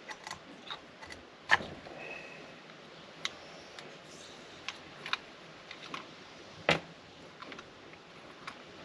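Irregular light clicks and knocks of tools and small metal parts being handled during chainsaw reassembly, with two louder knocks about a second and a half in and near seven seconds.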